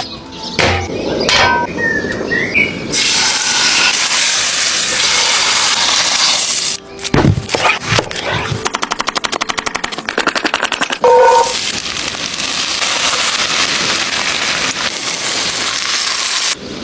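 A knife cutting through an onion on a wooden chopping board: a heavy knock on the board, then a fast run of chopping strokes, about ten a second, for a couple of seconds. Long stretches of steady hiss come before and after.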